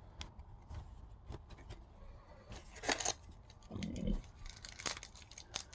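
Baseball trading cards being handled and flipped through one by one: faint clicks and slides of card stock, with a louder swish about three seconds in.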